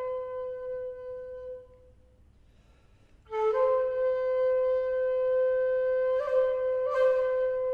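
Shakuhachi playing a long held note that fades out, then after a pause a new note that slides up slightly into pitch and is held. There are breathy attacks and short ornamental flicks near the end.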